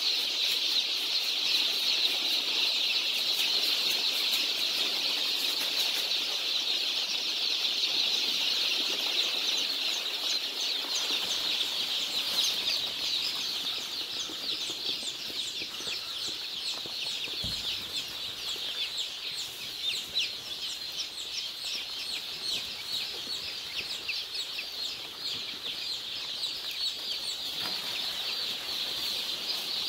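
A large flock of young Australorp and Rhode Island Red chicks peeping continuously, a dense chorus of high peeps. In the second half it is a little softer and single falling peeps stand out.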